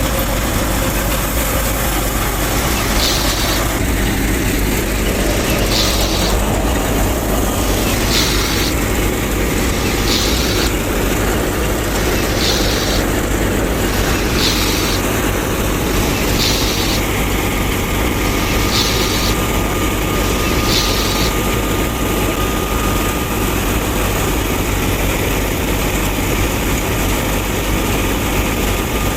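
A machine running steadily, with a brighter hissing pulse repeating about every two seconds that stops about twenty seconds in.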